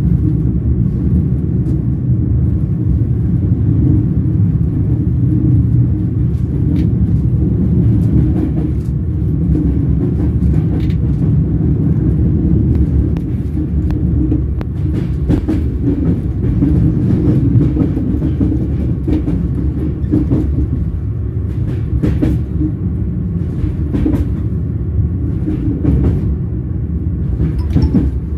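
Train wheels running on rails: a steady low rumble with scattered sharp clicks at irregular intervals.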